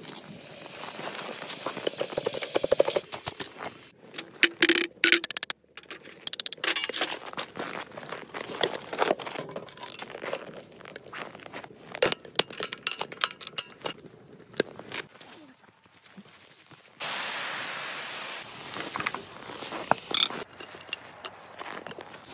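Cooking and handling sounds at a cast-iron cauldron on a wood-burning stove: irregular metal scrapes, clicks and crackles. About three quarters of the way through comes a steady hiss lasting about three seconds.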